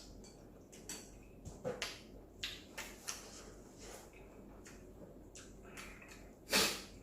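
A person eating instant ramyeon noodles with close chewing and slurping: a string of short wet noises and light clicks, then one louder slurp near the end.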